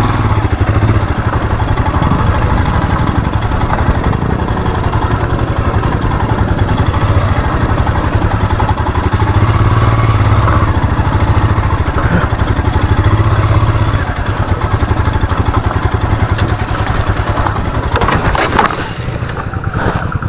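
Royal Enfield Himalayan's single-cylinder engine running and being revved as the heavy motorcycle is driven through deep mud, swelling louder a couple of times mid-way.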